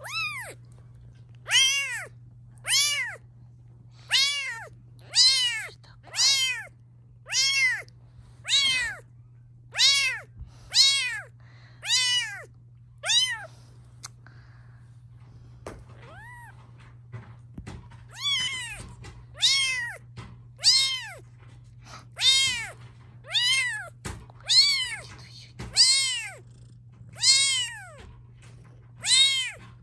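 A very young British Shorthair kitten mewing over and over, about one short high-pitched call a second, each rising and then falling in pitch. The calls stop for a few seconds about halfway through, then start again.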